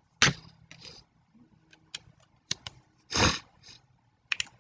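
A man coughing close to the microphone: a sharp cough about a quarter second in and a longer one just after three seconds, with small clicks between and after them.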